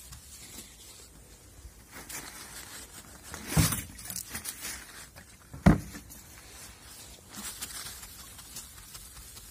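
Solvent-dampened paper towel rubbing and rustling against a car's painted body panel, with two sharp knocks a few seconds in, about two seconds apart, the second the loudest.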